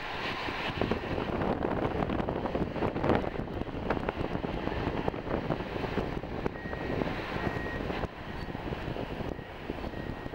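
A vehicle rolling slowly over rough dirt ground: a steady rumble full of short knocks and rattles. It eases off a little near the end.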